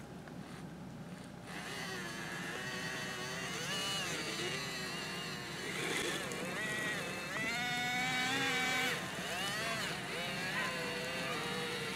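Electric motors of radio-controlled vehicles whining, the pitch rising and falling again and again as the throttle is worked.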